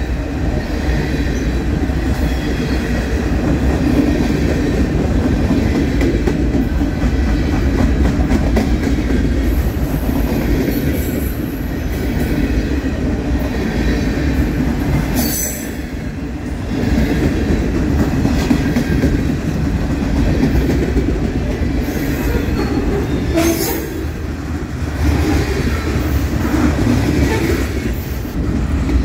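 Freight train cars rolling past close by: a steady rumble and clatter of steel wheels over the rails. Two brief sharp noises stand out, one about halfway through and one later.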